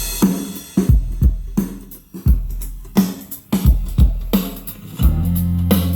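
Song intro on a drum kit, with repeated heavy kick-drum hits and snare, played back through a Bluetooth speaker with a double 6.5-inch subwoofer. A sustained deep bass line comes in about five seconds in.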